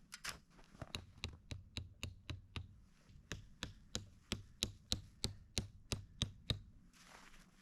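A hand tool striking something hard over and over, about three blows a second, in two runs with a short pause about three seconds in, the blows getting louder toward the end.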